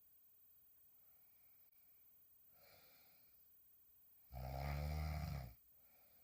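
A woman sleeping on her back snoring: one loud, low snore lasting over a second, beginning about four seconds in.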